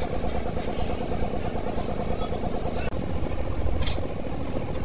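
An engine idling steadily with an even pulse, and one short, sharp metallic click a little before the end.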